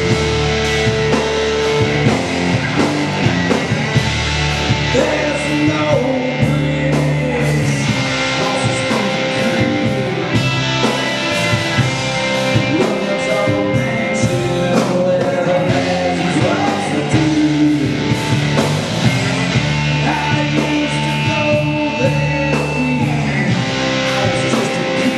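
Live rock band playing: electric guitars, bass guitar and a drum kit keeping a steady beat, with a lead line bending in pitch over the rhythm.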